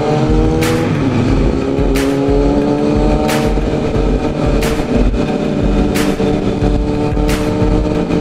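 Yamaha FZ-09 (MT-09) 847 cc three-cylinder engine under light throttle while riding. There is a gear change about a second in, after which the engine note climbs slowly and steadily as the bike gathers speed.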